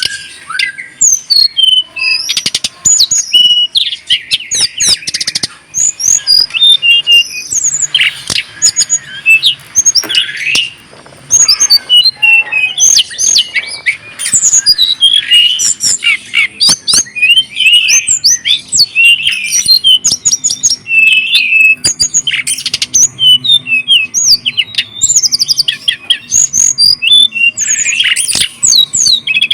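Pet songbirds singing and chirping without pause: quick high-pitched trills and chirps, with many short sharp clicks.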